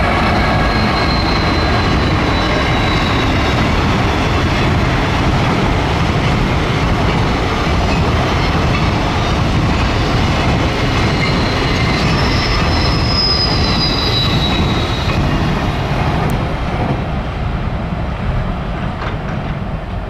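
Freight train of container wagons behind an EF510 electric locomotive rolling past on the rails: a loud, steady rumble of wheels on track with thin, high wheel squeals now and then. It fades away near the end as the last wagons go by.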